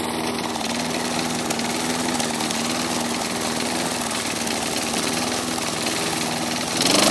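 Tecumseh push-mower engine running at high RPM, throttle held open, with a steady pitch and a noisy haze over it, growing louder near the end. The engine is worn out, with bad rings and a scored cylinder, and its owner says it sounds pretty bad, with a lot of rattling inside.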